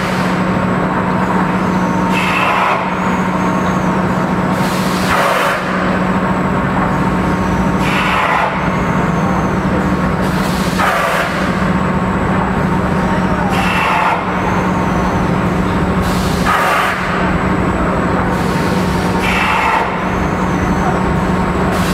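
Egg tray (pulp moulding) production line running: a loud, steady machine hum with a short burst of hiss about every three seconds, in time with the machine's cycle.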